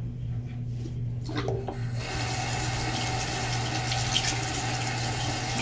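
Cold water tap turned on about two seconds in, running steadily into a sink, with a steady low hum underneath.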